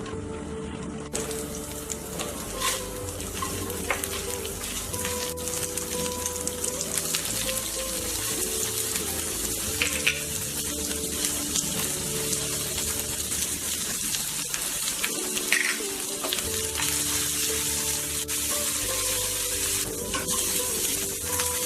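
Steady sizzling of dosa frying on a hot griddle, over background music.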